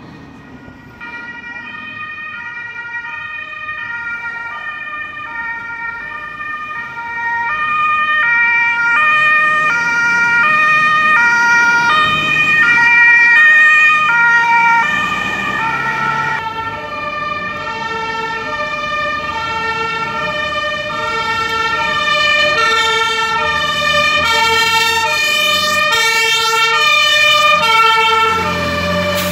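Several German two-tone emergency sirens (Martinshorn) sounding at once, each switching between a high and a low note, overlapping out of step. They grow louder over the first eight seconds as the vehicles approach. They are loudest as an ambulance passes about halfway through, and a fire engine follows near the end, its engine rumble rising at the very end.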